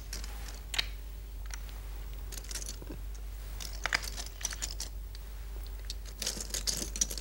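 Go stones being placed one by one on a large wall-mounted demonstration board: a scattered series of sharp clicks, several in quick succession near the end, over a steady low hum.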